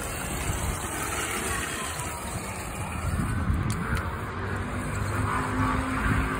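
Traxxas TRX-4 RC crawler driving over loose gravel: its electric motor and gears whine, rising and falling in pitch with the throttle, over the crunch of its tyres on the stones.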